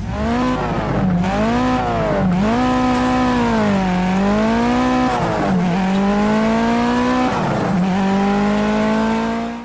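A racing engine is revved hard, its pitch climbing and falling over and over, with sharp drops about four times as it is shifted or throttled off. It ends in a long, slowly rising pull and cuts off suddenly.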